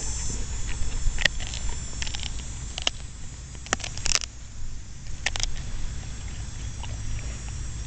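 Golden retriever gnawing a wooden stick: irregular sharp cracks and snaps of wood between his teeth, a few clearly louder than the rest.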